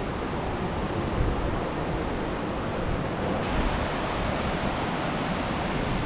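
Steady rushing of a mountain stream's water, with some uneven low rumble from wind on the microphone.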